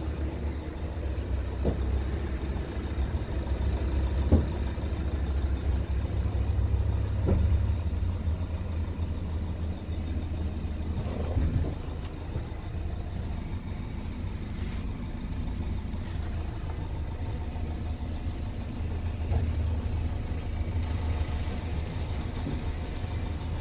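Scania P truck's diesel engine idling steadily, a low rumble heard inside the cab, with a few faint knocks.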